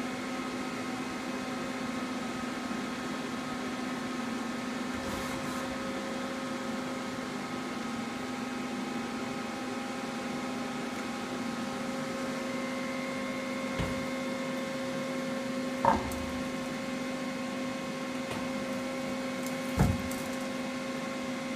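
Hwacheon Hi-Eco 31A CNC lathe running with a steady hum, with a few sharp metallic clunks in the last third, two of them loud and about four seconds apart.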